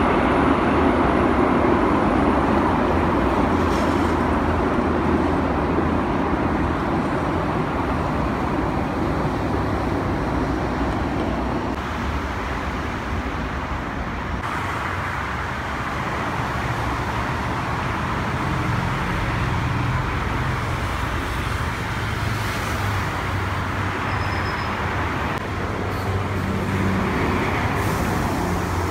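Steady rumble of engine noise from jet aircraft around an airport mixed with road traffic, loudest in the first dozen seconds and then easing.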